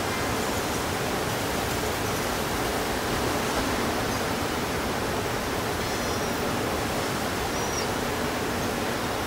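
Steady city noise, a constant wash of distant traffic, with a few faint high chirps about six and seven and a half seconds in.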